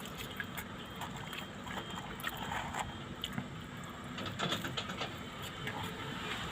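Steady low rumble of a car cabin with the windows down, with scattered small clicks and crackles through it.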